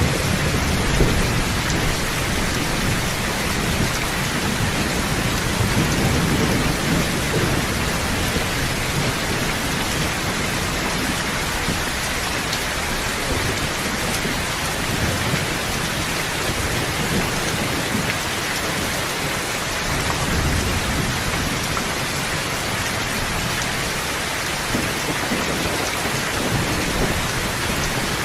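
Steady heavy rain, a dense even hiss, with low rumbles of thunder swelling in the first few seconds and more faintly later.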